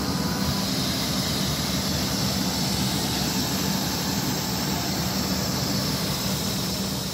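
Enclosed air compressor feeding an air receiver tank, running steadily: a constant low hum with a hiss above it.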